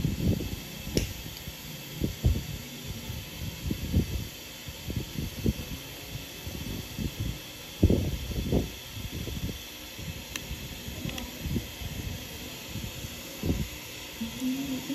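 Steady hiss with irregular soft low thumps and rustles, the strongest about eight seconds in.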